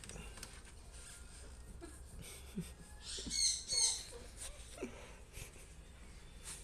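Small birds chirping: faint scattered squeaky calls, with a louder pair of high chirps about three seconds in.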